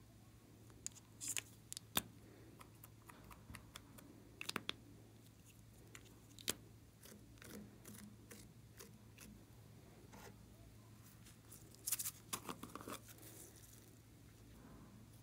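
Sharp clicks and taps of small plastic toy containers being handled and opened, scattered singly with a quick cluster of clicks about twelve seconds in, over a faint steady hum.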